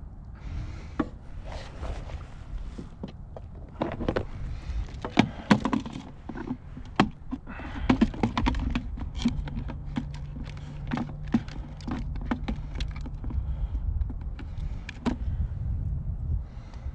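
A run of sharp plastic clicks and knocks as a small plastic tackle box is handled and opened on a plastic kayak deck, over a steady low wind rumble on the microphone.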